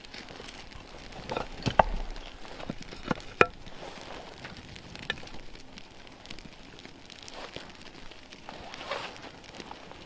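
Dry kindling snapping and crackling in scattered sharp cracks, most of them in the first few seconds, over a faint rustle, as a small campfire is being started.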